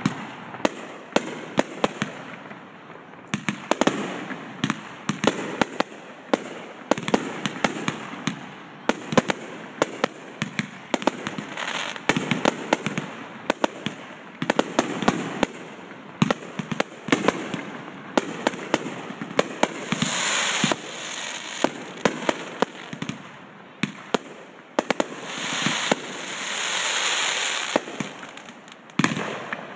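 Aerial fireworks bursting in rapid, irregular bangs and pops, one after another. Two longer stretches of hiss swell up about two-thirds of the way through and again near the end.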